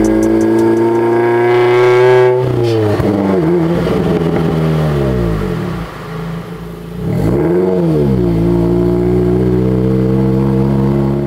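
Subaru WRX engine revving, its pitch climbing slowly and then falling away about two and a half seconds in as the revs drop. A single short rev blip comes near the middle, and the engine then holds a steady note.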